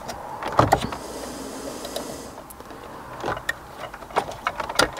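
Plastic wiring connectors on the back of a car head unit clicking and rattling as a connector's tab is pushed in and the plug is pulled off, with cable harness rustling. The sound is a series of short, sharp clicks and knocks, with a brief rustle about a second in.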